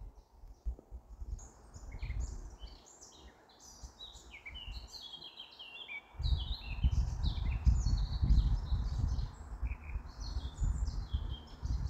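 Small birds chirping and twittering in quick, high calls, several at once. About six seconds in, a low rumble comes in and becomes the loudest sound.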